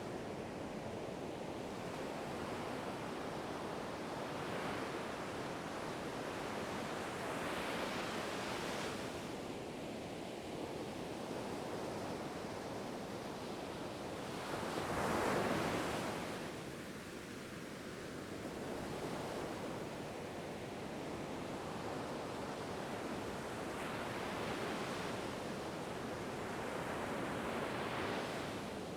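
Ocean surf: waves rolling in and washing up in a steady rush that swells every few seconds, with one louder wave breaking about halfway through.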